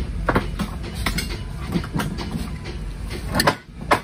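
Several short metallic clicks and knocks as the sheet-metal housing and manual-release clutch of a single-phase sliding-gate gear motor are handled. A steady low rumble runs underneath and stops sharply near the end.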